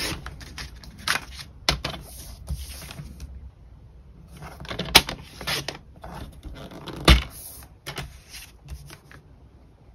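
Card stock being cut to size on a paper trimmer: paper handling and sliding and scraping of the trimmer, with two sharp clicks about five and seven seconds in.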